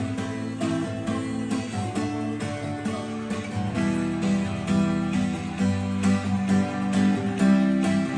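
Acoustic guitar strumming chords in a steady rhythm, playing through a song with no singing.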